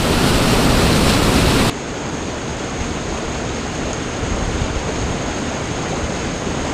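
Rushing white water from a dam spillway outflow, a steady noisy rush. About two seconds in it changes to a quieter, thinner rush of water pouring down a narrow concrete spillway chute.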